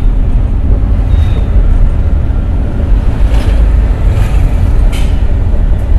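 Car driving through town heard from inside the cabin: a loud, steady, low engine and road rumble, with two short sharp ticks about three and five seconds in.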